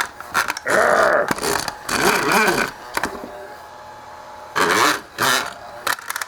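Stepper motors of a mini LED moving-head light whining in several bursts as the head pans and tilts, the pitch rising and falling as each move speeds up and slows down. A steady low fan hum lies underneath.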